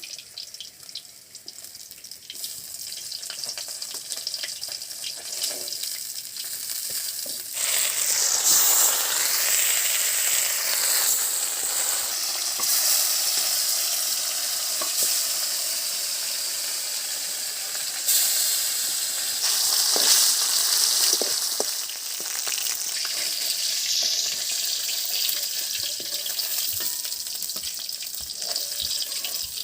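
Catla fish pieces frying in hot mustard oil in a kadai, a steady sizzle that swells sharply louder about seven seconds in and again briefly around eighteen seconds, as pieces are turned and lifted from the oil.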